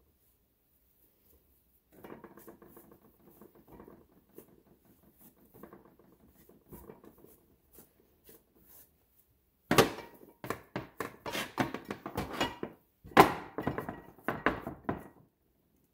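Soft rubbing and patting of bread dough being shaped by hand. About ten seconds in, a glass loaf pan starts clunking and knocking against the board as dough is pressed into it: a quick run of sharp knocks, the two loudest a few seconds apart.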